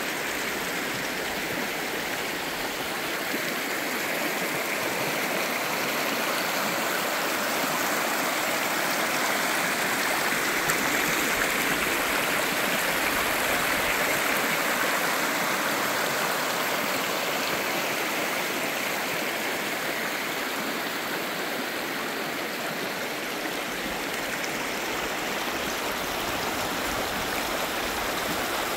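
Shallow rocky creek running over stones: a steady rush of water, swelling slightly in the middle as white water breaks over a riffle.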